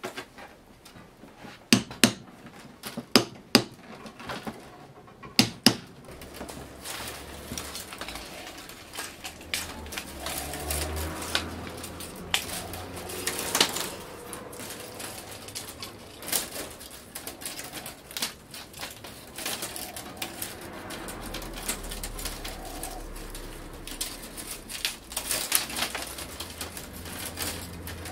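Split bamboo strips of a twill-woven winnowing basket being worked by hand. There are a few sharp taps in the first six seconds as a metal tool is knocked against the weave, then a run of dry clicking and rustling as stiff strips are pushed and bent through the weave.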